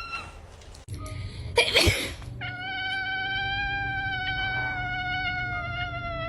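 A person gives a short cough, and a domestic cat answers with one long, drawn-out meow, held steady for about four seconds and dipping slightly in pitch as it ends. A brief meow comes right at the start.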